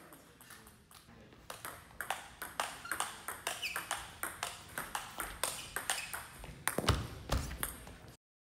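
Table tennis rally: the ball clicking off the paddles and the table in a steady back-and-forth, about two to three hits a second. Near the end come a couple of dull thumps, and then the sound cuts off.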